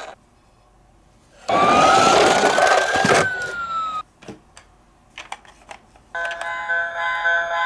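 A police-car siren wail rises and then falls once over a loud hiss for about two and a half seconds. A few light clicks follow. About six seconds in, a bright electronic chiming tune of several held notes starts.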